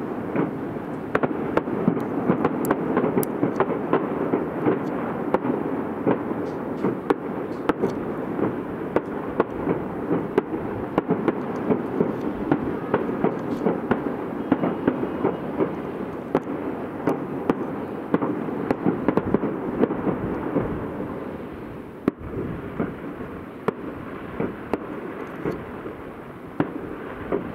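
Fireworks display: a dense, continuous barrage of aerial shell bursts and crackling pops over a steady din, getting quieter for the last few seconds.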